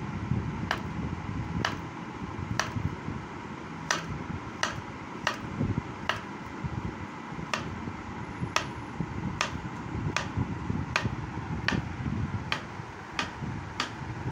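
Kitchen knife slicing a peeled banana into rounds on a wooden cutting board, each cut ending in a light tap of the blade on the board, about three taps every two seconds.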